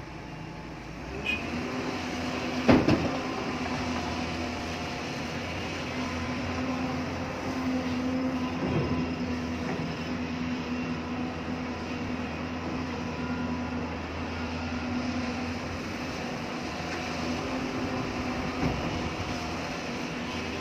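Excavator's diesel engine running under load, its steady drone stepping up to a higher speed about a second in. A loud metallic knock comes a couple of seconds later, with fainter knocks further on.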